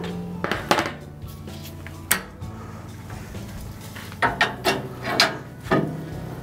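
Steel door and grates of a Shirley Fabrication 24x36 offset smoker: the cook-chamber door unlatched and swung open, then a steel grate hook knocking and scraping on the cooking grate as the rack is pulled out. Scattered sharp metal clanks, with a quick run of them from about four seconds in.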